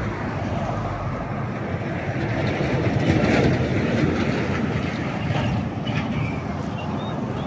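Steady rumble of vehicle road noise, swelling about three seconds in.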